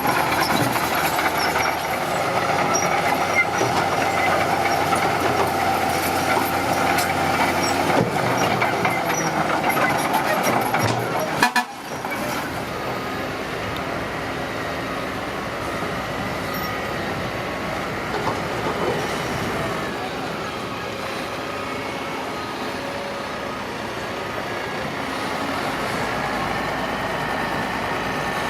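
Engine of heavy earth-moving machinery running steadily under work. It breaks off suddenly about a third of the way through, then carries on a little quieter.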